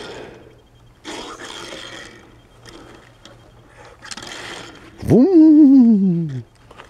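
A Hot Wheels toy van's wheels rolling and skidding across a smooth board, a short scraping rush with each push, three times. About five seconds in comes a loud, drawn-out vocal sound from the man that rises, wavers and slides down in pitch.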